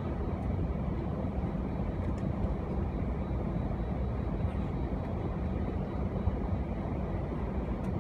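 Steady low rumble inside the cabin of an Airbus A319 taxiing on the ground, its jet engines near idle.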